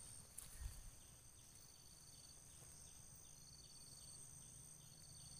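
Faint insect chorus: a steady high buzz, with three short pulsed trills about a second and a half apart. A soft thump about half a second in.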